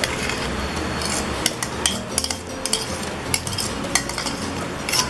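A metal spoon clinking and scraping against a bowl in about eight scattered taps as diced carrots are scraped out into a mixing bowl.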